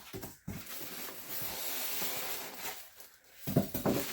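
Packing material rustling as it is handled during unboxing, with a louder clatter of knocks near the end as things in the box are moved.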